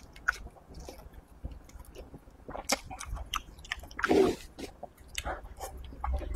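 Close-miked biting and chewing of braised pig's trotter, with many short wet smacks and clicks of the mouth. One louder, longer mouth sound comes about four seconds in.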